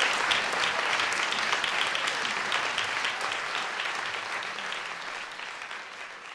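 Audience applauding at the end of a live performance, the clapping slowly dying down.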